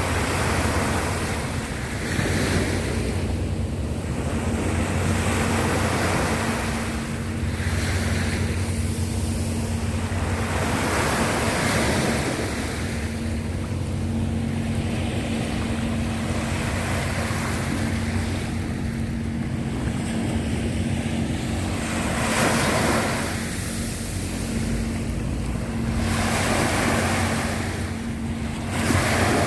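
Sea waves breaking and washing ashore, swelling in surges every few seconds, with a steady low engine hum underneath.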